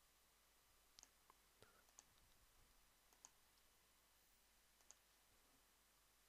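Near silence broken by about six faint, sharp computer-mouse clicks, scattered over the first five seconds.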